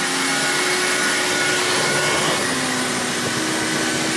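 Carpet spot cleaner's motor running steadily, its hand nozzle drawn over the carpet to suck water back out of it.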